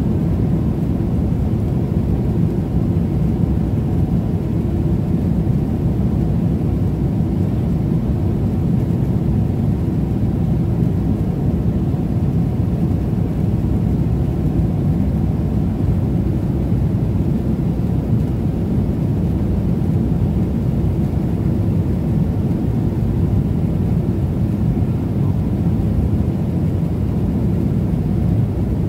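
Airliner cabin noise: a steady low rumble of engines and airflow heard from a passenger seat, unchanging throughout.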